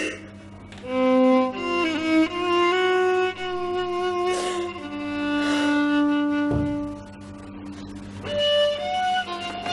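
Background music: a slow melody on violin, with long held notes that waver slightly and change pitch every second or so.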